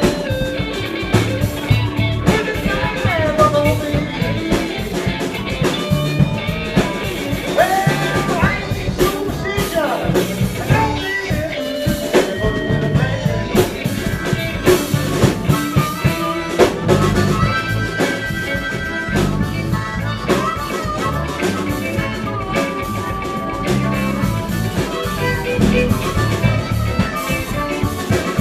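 Live blues band playing: electric guitar, bass guitar and drum kit over a steady beat, with lead lines that bend in pitch.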